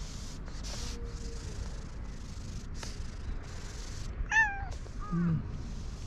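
A cat meowing twice, a short high meow about four seconds in followed by a lower meow that falls in pitch.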